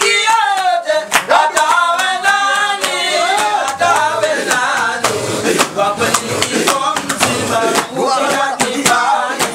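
Men's group chanting a dhikri, an Islamic devotional chant: a lead voice amplified through a microphone with other male voices singing along, over a steady beat of sharp percussive strokes.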